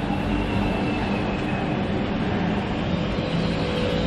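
Ceiling fan running with heavy wobble on extended downrods, giving a loud, steady mechanical rumble and rattle.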